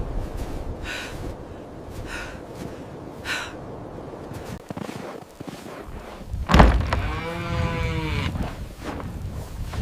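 Three short faint sounds about a second apart, then a sharp thunk, followed at once by a cow's short moo.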